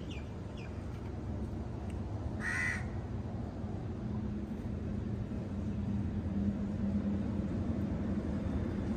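A crow caws once, a short harsh call about two and a half seconds in, over a steady low rumble and hum.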